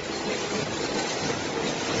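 Automatic pocket spring machine running steadily, a dense fast mechanical clatter with a faint steady hum.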